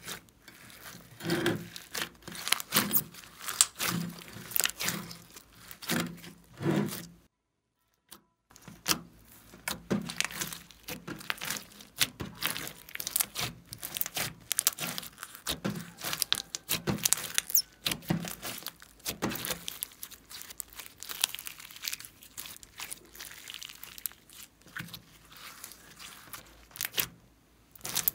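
Hands squeezing and kneading glossy slime mixed with small foam beads and glitter, giving a dense run of short squelching crackles and pops. A silent break of about a second comes a little after seven seconds in.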